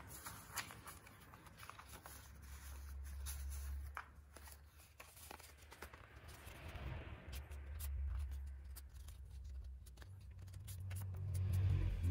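Small squares of paper being handled and folded by hand on a tabletop: light rustles, crinkles and taps. Underneath is a low background rumble that swells a few times and is loudest near the end.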